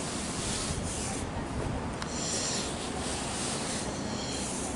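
Rubbing and rustling handling noise, with several brief patches of hiss, while the camera is carried down a steel fire escape.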